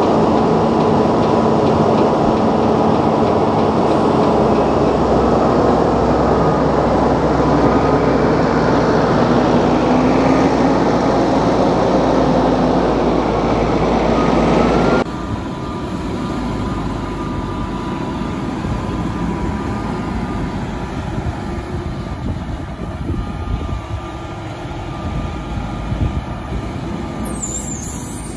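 Farm tractors' diesel engines running steadily while driving over a silage clamp. About halfway through the sound drops suddenly to a quieter machine noise.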